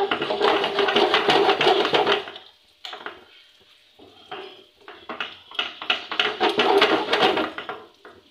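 A spatula stirring thick white sauce in a nonstick frying pan, scraping and clattering against the pan. There are two brisk spells of stirring, each a couple of seconds long, with a quieter lull between.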